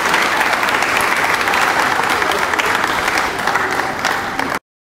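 Audience applauding, a dense patter of many hands that eases slightly and then cuts off abruptly near the end.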